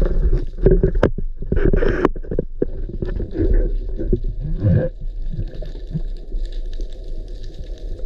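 Muffled underwater sound picked up by a submerged camera: a steady low rumble of water moving past it, with irregular gurgles and soft knocks during the first five seconds.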